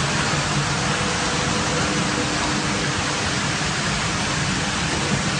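Industrial carpet washing machine running: a steady, even rush of water-like noise over a low hum.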